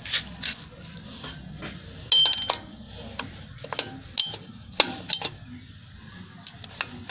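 Steel tools clicking and scraping against a Toyota Avanza drum brake's shoe and coil return spring as the spring is levered onto its hook. The clicks are irregular, with a brief metallic ring about two seconds in and sharp clicks around four and five seconds in.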